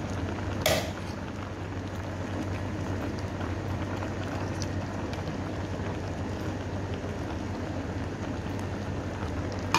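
Vinegar broth boiling hard in a pot, a steady bubbling hiss over a low steady hum, with a sharp knock about a second in and another near the end.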